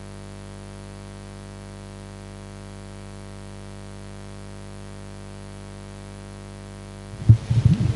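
Steady electrical hum from a church PA system, unchanging and made of several even tones. About seven seconds in, a burst of loud, irregular low thumps from a handheld microphone being handled.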